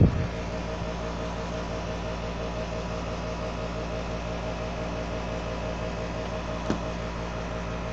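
Steady electrical hum made of several held tones. A knock right at the start as the phone is handled on the wooden desk, and one short click near the end.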